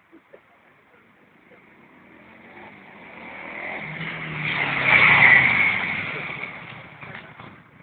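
Honda VT600 Shadow's V-twin engine riding past: it grows louder as the bike approaches, is loudest about five seconds in as it goes by close, then fades away.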